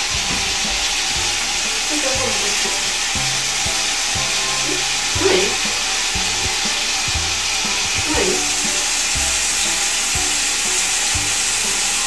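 Steady hiss of a hand-held shower running, its water spraying onto the shower floor.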